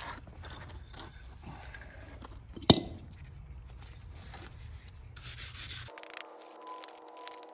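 Hand scraping and rubbing on a metal part while it is cleaned of rust, with one sharp clank a little under three seconds in. Near the end the sound cuts abruptly to a few steady held tones.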